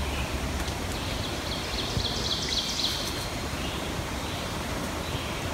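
Woodland ambience: a steady rustle of leaves, with a bird singing a quick run of high, evenly repeated notes between about one and three seconds in.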